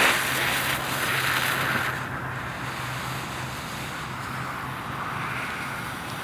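Several paper colour smoke balls hissing as they burn: a loud, spark-spraying fizz for the first two seconds, settling into a steadier, softer hiss as they pour out coloured smoke.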